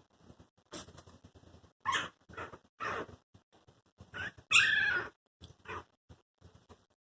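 Newborn Chihuahua puppies whimpering and squeaking: a string of short, high cries, the longest and loudest a bit past halfway.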